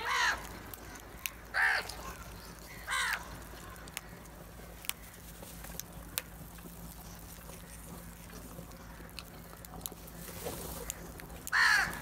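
House crows cawing: three loud, harsh caws in the first three seconds and another near the end. In between, scattered sharp taps of beaks pecking grain off the concrete.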